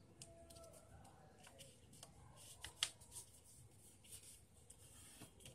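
A sheet of paper being folded and creased flat by hand: faint crinkling and rustling, with one sharp crackle a little under three seconds in.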